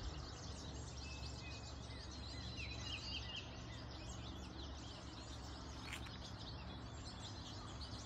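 A flock of small finches, taken for American goldfinches ("yellow finches"), chirping and twittering together, with a short trill about three seconds in. A steady low hum runs underneath.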